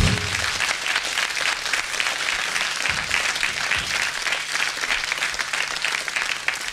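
Concert audience applauding steadily, just after the band's last chord cuts off at the start.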